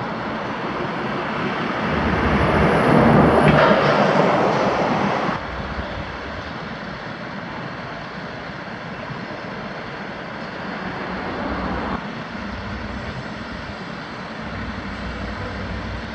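Steady heavy-machinery engine noise that swells louder for a few seconds, then drops off suddenly and carries on at a lower level.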